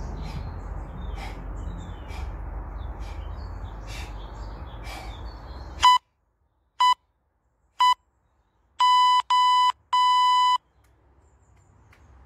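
Outdoor background with a low rumble and chirping birds, then an electronic workout interval timer beeping: three short beeps about a second apart, followed by three longer beeps close together, signalling the end of the final work interval. The background drops out to silence as the beeps begin.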